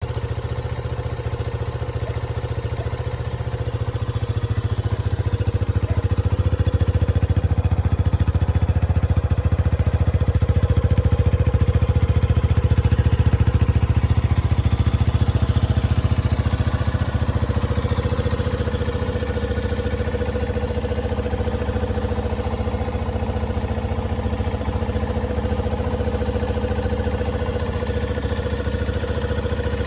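Yamaha XT250's air-cooled single-cylinder four-stroke engine idling steadily. It is louder for a stretch in the middle, heard close to the exhaust muffler.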